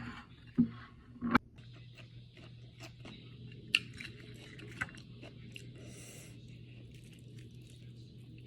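A person chewing and biting crunchy food, with a few sharp clicks in the first second and a half, then softer scattered crunches.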